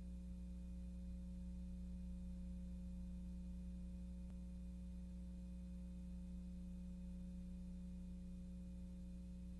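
Steady low electrical hum with a few faint higher overtones under a silent title card, with no other sound.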